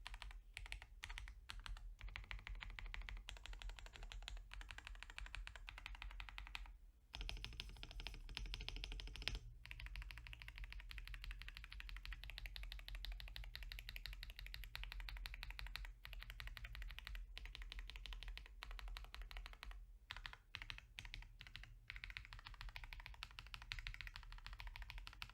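Continuous typing on a KBDFans KBD67 Lite R3 mechanical keyboard with lubed KTT Rose linear switches on 65 g springs: a dense stream of keystrokes, broken by short pauses about seven and nine and a half seconds in.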